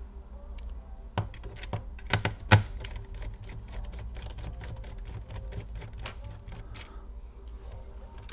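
Small screws being unscrewed from a plastic laptop bottom case with a precision screwdriver: a run of light clicks and ticks, with a few sharper taps a little after one second and around two seconds in as screws or the driver knock on the case.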